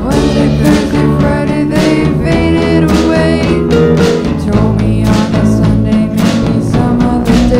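A recorded rock band playing: guitar, bass and drum kit with a steady beat.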